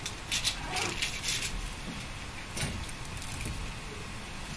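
Dry, papery onion skin crackling as it is peeled off a whole onion by hand, in two spells of short crackles: one in the first second, a shorter one just past the middle.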